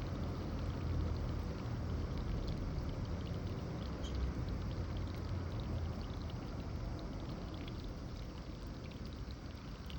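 Steady running, pouring water, with faint small splashes and flicks from Eurasian tree sparrows bathing in it.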